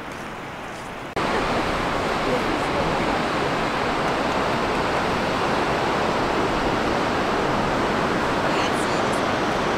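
A large waterfall rushing: a steady, even roar of falling water. It is quieter at first and comes in loud after an abrupt cut about a second in.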